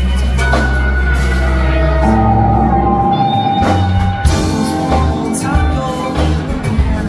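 Rock band playing live: electric guitars, bass and drums, with a sung vocal over them, recorded from among the audience.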